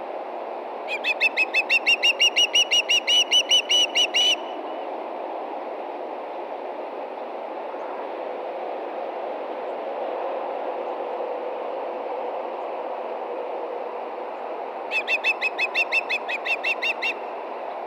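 Osprey calling in two runs of rapid, evenly spaced high chirps, about five a second: one lasting about three seconds shortly after the start, a shorter one near the end. Under them runs a steady low background rumble.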